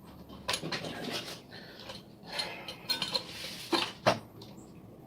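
Small tools and parts being handled on a workbench: irregular clicks, light clatter and short scrapes, with two sharper knocks near the end.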